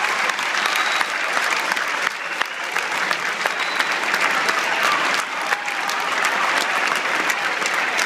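Large audience applauding steadily, a dense patter of many hands clapping without a break.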